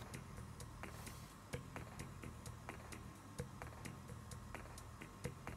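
Faint, regular ticking, a few ticks a second, over a low steady hum.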